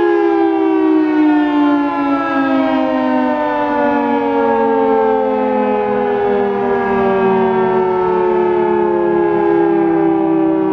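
Federal Signal 3T22 three-tone outdoor warning siren winding down, its loud chord sliding slowly and steadily lower in pitch.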